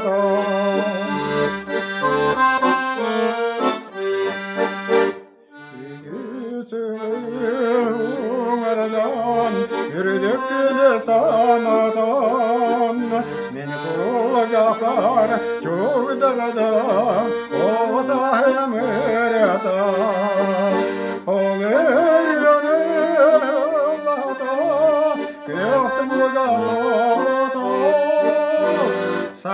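Piano accordion playing a folk-style tune, with chords over a regular bass beat. After a short drop about five seconds in, a man's singing voice comes in over it, its pitch wavering.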